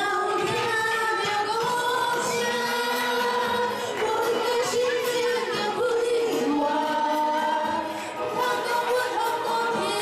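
Vocal music: singing with long held notes.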